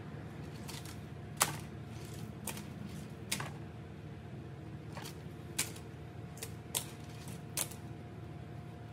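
Irregular sharp clicks and ticks, about nine in all with the loudest about a second and a half in, from thin wires being handled and twisted by hand into a harness bundle. A steady low hum runs underneath.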